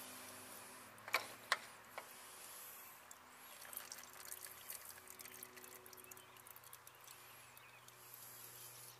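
Used motor oil trickling from the lawn tractor's Kohler engine as the spin-on oil filter is unscrewed, running down the filter tray's little drain into the pan; faint, with three sharp clicks about a second in.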